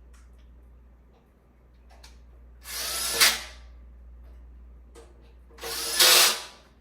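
Cordless drill driving screws into a metal bed-frame leg: two short bursts about three seconds apart, the motor whine rising as each starts.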